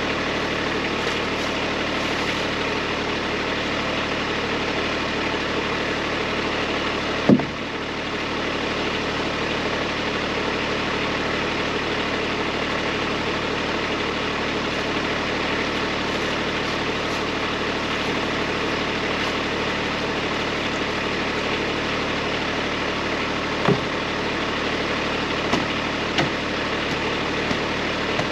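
Kubota B2301 tractor's three-cylinder diesel engine running at a steady speed while driving the BH70 backhoe. There is one sharp, loud clank about seven seconds in and a few lighter knocks near the end.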